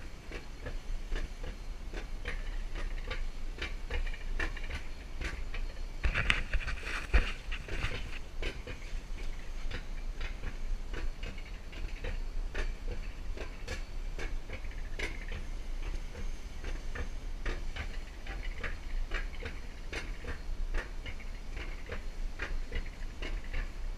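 Alpine coaster sled running down its steel rail track, rattling with a rapid stream of clicks and clacks over a steady low rumble.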